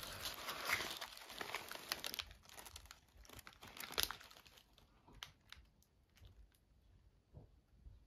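Paper or plastic wrapping crinkling and rustling as it is handled. The crinkling is dense for the first couple of seconds, then thins to scattered crackles, with a sharper crackle about four seconds in.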